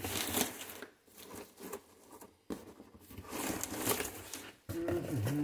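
Cardboard and crinkled paper packing rustling and scraping as a long white product box is worked out of a torn shipping carton. Near the end a low steady hum begins.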